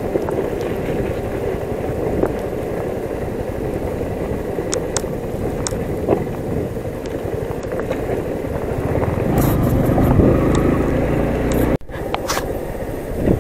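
Yamaha MT-15's single-cylinder engine running as the bike rides over a rough, rocky dirt track, with the rumble of tyres on gravel and scattered sharp clicks and knocks from stones. The sound grows louder about two-thirds of the way through and breaks off for a moment near the end.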